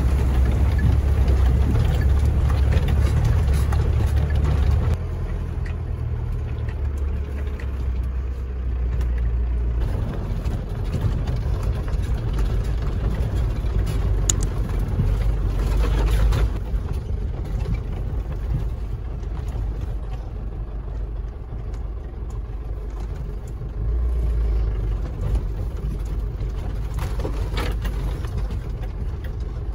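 Diesel engine of an Iveco Daily 4x4 camper van running as it drives off-road: a steady low rumble that shifts in level several times.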